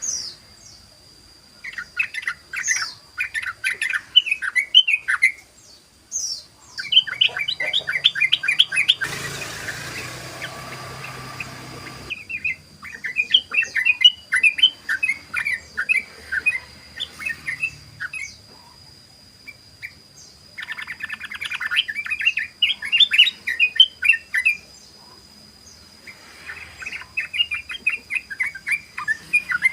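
Yellow-vented bulbul (trucukan) singing its rapid, bubbly chattering 'ropel' song in repeated phrases of a few seconds each. A burst of hiss comes about nine seconds in and lasts some three seconds, and a faint steady high whine runs underneath.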